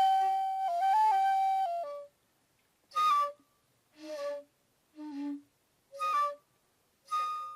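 Shakuhachi (end-blown bamboo flute) playing a phrase: a long held note with a few small pitch steps that ends about two seconds in, then four short separate notes about a second apart, and a new held note starting near the end.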